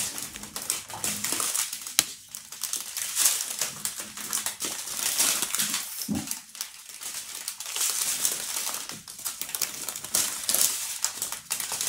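Clear plastic bags crinkling and rustling in irregular bursts as they are handled, with short clicks among them.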